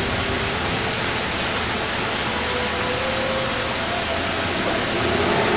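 Torrential rain pouring down in a steady, even hiss.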